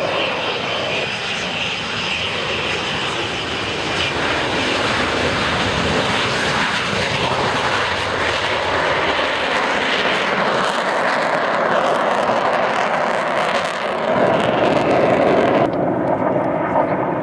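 Avro Vulcan XH558's four Rolls-Royce Olympus turbojets at takeoff power as the bomber lifts off and climbs away: loud, steady jet noise, growing louder near the end and turning duller in the last second or so.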